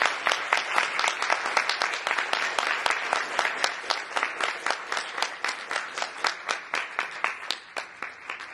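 Audience applauding a speaker's welcome, the clapping slowly dying away toward the end.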